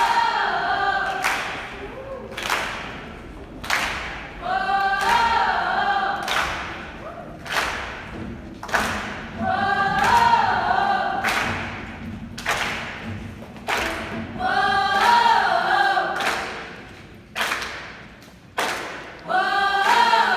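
A high school choir singing short phrases, one about every five seconds, in a reverberant gymnasium. Sharp rhythmic hits fall between the phrases, about one a second.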